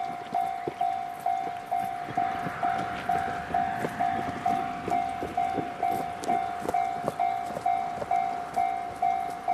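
Japanese level-crossing warning alarm sounding its steady clanging tone, about three strikes a second. It signals that a train is approaching the crossing.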